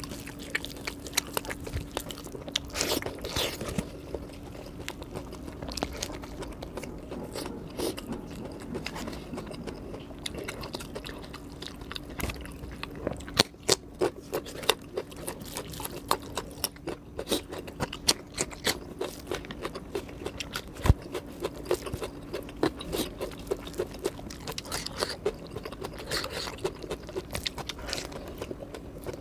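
Close-mic eating sounds of a meal of rice, fried chicken and salad eaten by hand: irregular wet chewing and crunching with many sharp clicks, and the hand scraping and mixing rice on paper, over a steady low hum.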